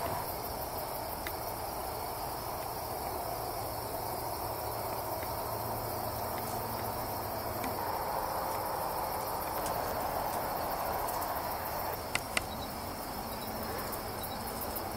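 Steady chorus of night insects, crickets chirping without a break, with two sharp clicks a little before the end.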